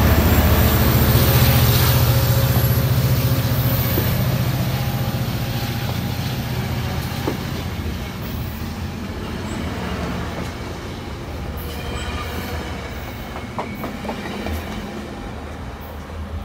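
Coaster commuter train passing close by: the F59PHI diesel locomotive's EMD 710 engine rumbles loudly at first and fades as the bilevel coaches roll past, wheels clicking over the rail joints, then the train recedes.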